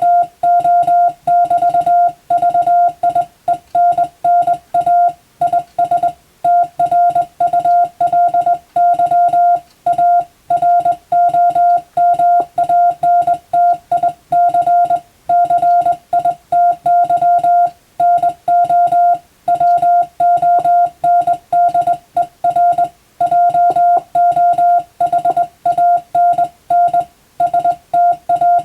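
Morse code sent by hand on a telegraph key, heard as a single steady tone of about 700 Hz keyed rapidly on and off into dots and dashes, with only short gaps between characters and words.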